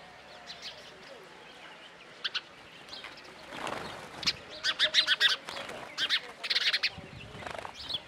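House sparrows chirping: scattered short chirps that thicken into quick runs of chirps between about four and seven seconds in, with a brief rush of wings as one flits past.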